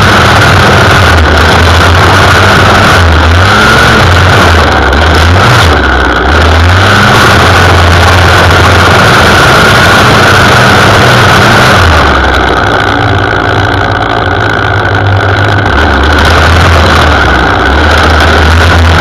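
Gas string trimmer running at high throttle with a steady high whine, its line cutting grass and weeds along a concrete edge. About twelve seconds in the engine eases off for a few seconds, then picks back up.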